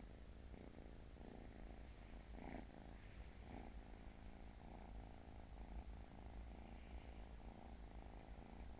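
Tabby kitten purring steadily, close by, with a few brief rustles as a hand rubs its belly.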